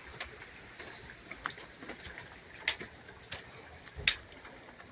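Steady light rain falling, with irregular sharp taps of raindrops landing close by, two of them louder than the rest and about a second and a half apart in the second half.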